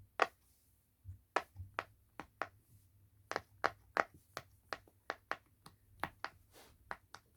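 Silicone pop-it fidget being pressed on its noisy side: bubbles popping in an irregular run of sharp pops, a few a second.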